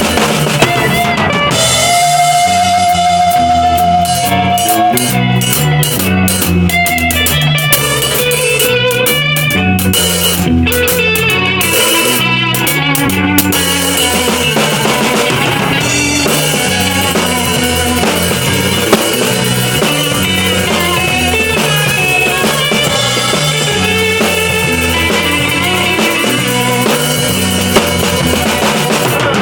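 Drum kit and guitar jamming together over a repeating groove, with cymbal hits crowding the first half and a held, wavering guitar note a few seconds in.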